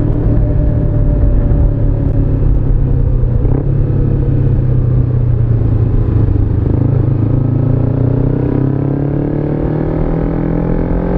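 Motorcycle engine heard from on the bike, running steadily at low revs, then accelerating with a rising pitch from about seven seconds in.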